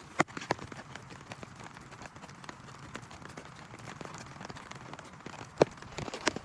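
Rain falling, with a steady patter of small drops and a few heavier drops striking a surface in sharp taps, the loudest about five and a half seconds in.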